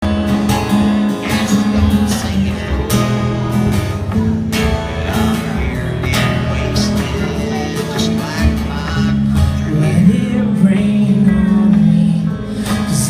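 Live band playing the instrumental intro of a rock song, led by strummed guitar.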